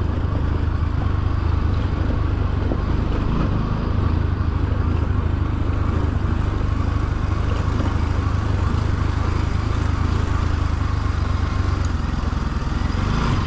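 Motorcycle engine running steadily at low road speed on a dirt track, a constant low hum with a steady rushing noise over it.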